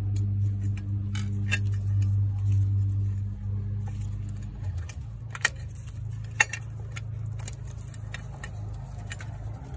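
Light metallic clicks and clinks as a sheet-metal bracket and its fasteners are handled and worked loose in a car's engine bay, with two sharper clicks about five and a half and six and a half seconds in. Under them runs a steady low hum that eases off about halfway through.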